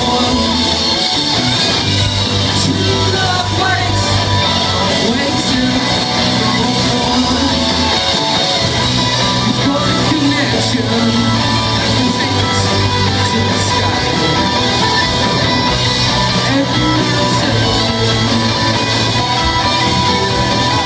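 Live rock band playing loud: two electric guitars, bass guitar and drums, with singing.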